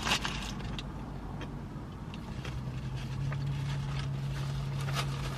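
Steady low hum inside a parked car with its engine running, with a sharp click just at the start and light paper rustling from a burger wrapper being handled near the end.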